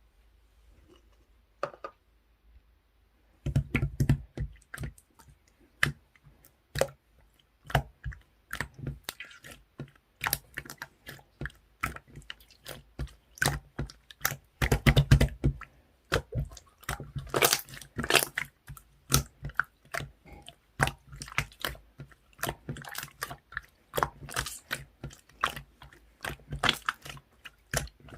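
Marbled slime being squished and kneaded by hand, making a dense run of irregular wet clicks and pops that starts about three and a half seconds in.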